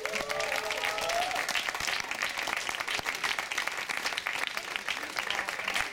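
Crowd applauding steadily, with a few cheers in the first second or so.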